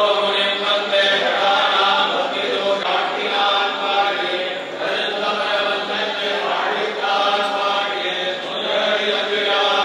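Several voices chanting together in a continuous Hindu temple recitation, in phrases broken by brief pauses.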